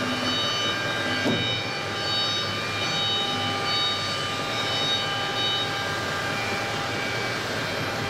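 Steady mechanical hum from a CNC milling machine, with several thin high whining tones that come and go as its motors run, and one short click about a second in.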